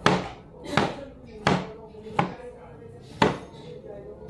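Knife chopping silk squash on a cutting board: five sharp strikes, a little under a second apart.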